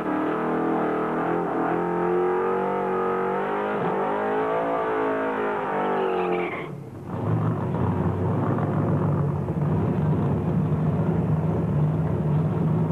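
Ford Anglia drag car's engine held at high revs, its pitch wavering up and down. After a brief dip about seven seconds in, it runs at lower, uneven revs.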